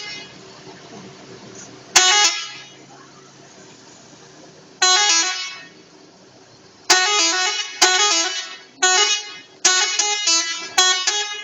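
Three-set telolet musical bus horn sounding a series of short blasts. There is a single blast about two seconds in and another about five seconds in, then a quicker run of blasts from about seven seconds in, the notes changing pitch from one blast to the next.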